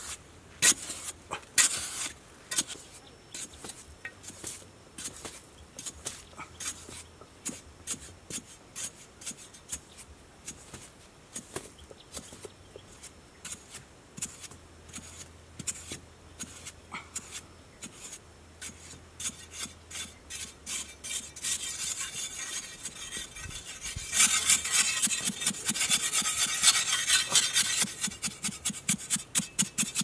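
A narrow metal digging blade on a long pole chopping and scraping into dry, sandy soil in a series of short strokes. The strokes come thick and fast near the end, as the hole is scraped out.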